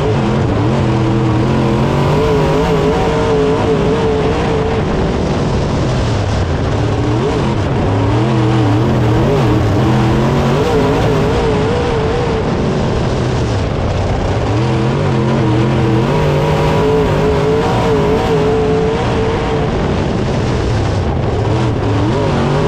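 Dirt late model race car's V8 engine at racing speed, heard from inside the cockpit. Its pitch climbs and falls again and again as the throttle is opened and lifted lap after lap.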